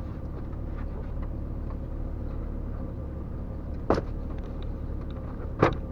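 Two sharp plastic snaps, about four seconds in and again near the end, as dashboard trim clips pop loose from the Jeep XJ's dash panel, over the steady low rumble of the Jeep's engine idling, heard from inside the cab.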